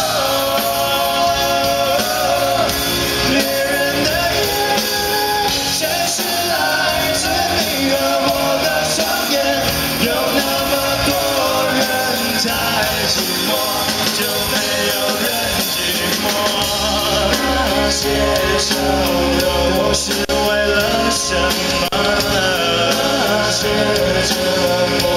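A man singing into a microphone with a live band playing, guitar among it, loud and continuous through a concert sound system.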